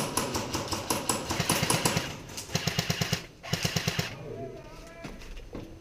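Airsoft rifle firing rapid full-auto bursts of about ten shots a second, with two short bursts in the middle. The gun is plausibly the GHK AUG gas-blowback rifle.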